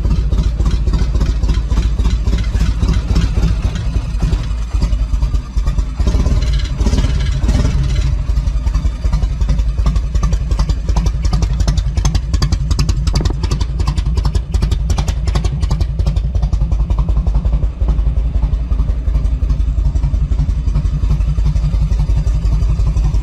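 A 1990 Harley-Davidson Electra Glide Ultra Classic's carbureted Evolution V-twin running at idle, heard close up, soon after a hard start on an old battery. About six seconds in, the sound swells and brightens for a couple of seconds.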